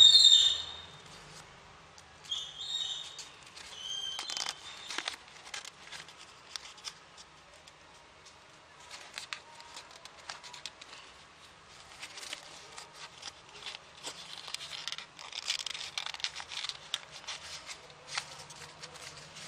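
Sheet of origami paper being folded and creased by hand: soft rustling and crisp crackling clicks, busiest in the second half. A few short high-pitched chirps in the first few seconds, the loudest right at the start.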